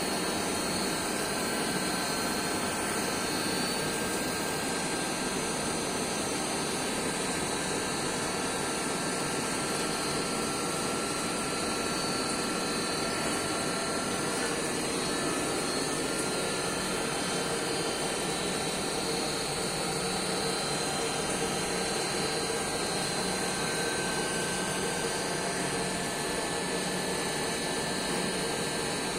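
Submerged CNC wire-cut EDM machine running steadily: a constant whirring hiss with a few faint, steady high whines.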